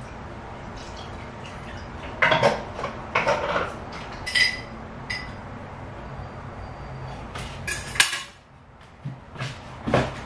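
Dishes and utensils being handled on a kitchen counter: several clattering knocks and two short ringing clinks of crockery or glass, over a steady low hum that cuts off about eight seconds in.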